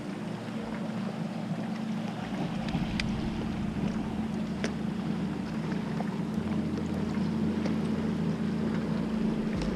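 Wind on the microphone and water noise on a kayak out on a lake, over a steady low hum. There are two light clicks, and the low rumble grows in the second half.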